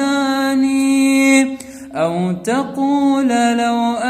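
A male Quran reciter chanting in melodic tajweed style. He holds one long level note, breaks off briefly about a second and a half in, then comes back in with a sliding, ornamented line.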